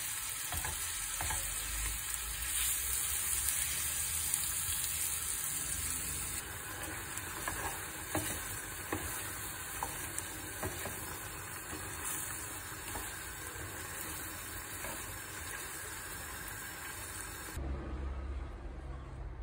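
Flour-dusted chicken pieces sizzling in a frying pan while the pan juices bubble down toward a sauce. A spatula stirs them, scraping and tapping against the pan now and then. The sizzling cuts off suddenly near the end.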